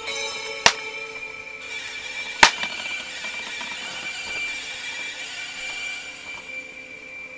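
Two sharp clicks of a plastic DVD case being handled, the second, louder one nearly two seconds after the first. Steady held musical tones play in the background throughout.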